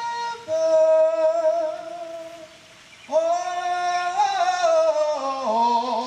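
A man singing solo into a handheld microphone, holding long sustained notes. There is a short pause near the middle, then a phrase that rises and steps downward near the end.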